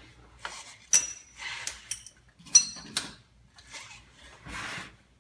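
Steel hand tools clinking and rattling as a screw extractor on a hex-bit extension is worked into a broken exhaust manifold stud, with two sharp ringing metal clinks about a second and about two and a half seconds in, and scraping handling noise between them.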